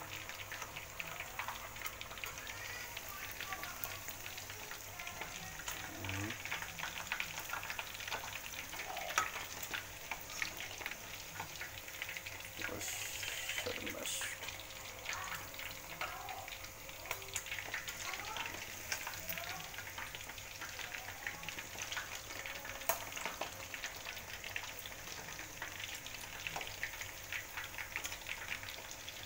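Spice-marinated chicken pieces deep-frying in a wok of hot oil: a dense, steady crackle and sizzle of heavy bubbling, the chicken still giving up its water. Now and then a metal spatula or spoon knocks and scrapes against the wok as the pieces are stirred.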